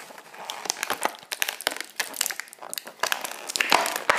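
Clear plastic toy packaging being crinkled and handled, a dense run of irregular crackles and rustles that swells loudest near the end.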